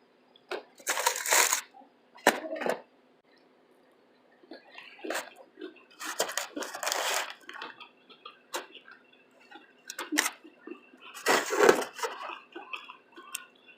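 Close-up eating sounds from biting into and chewing a shrimp taco: several short crunchy, wet bursts with pauses between them, the longest a little past the middle.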